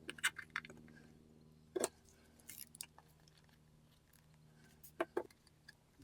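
Light clicks and knocks of small wooden case pieces being handled and pressed into place while the top is glued on. A few at the start, one about two seconds in, a few more around three seconds and two near the end, over a steady low hum.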